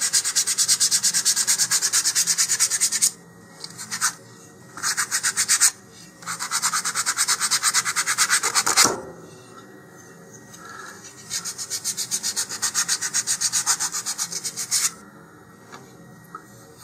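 Basswood fin rubbed back and forth on a sanding block in quick, even strokes, rounding its leading edge. The sanding comes in several runs with short pauses between and stops about a second before the end.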